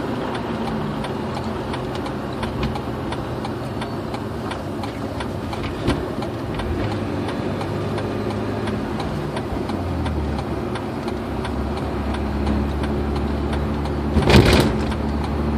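Road and engine noise inside a car's cabin while cruising on a highway, steady throughout, with a short knock about six seconds in and a louder thump near the end.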